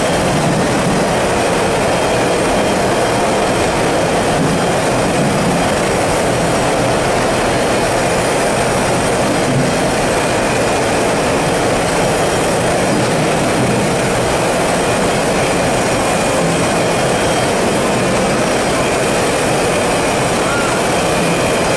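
Potato french-fry processing line machinery (washer-peeler, elevator and conveyors) running with a steady, even mechanical din.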